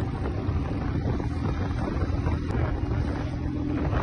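Engine of a handlebar-steered off-road vehicle running as it moves at speed, with heavy wind rushing over the microphone.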